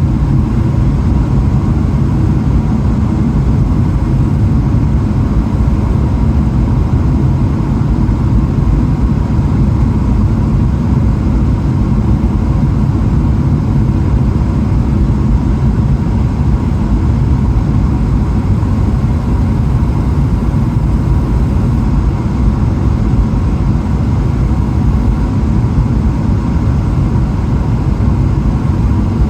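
Steady cabin noise inside a Boeing 777-300ER: a low, even rush of airflow and engine drone, with a faint steady whine above it.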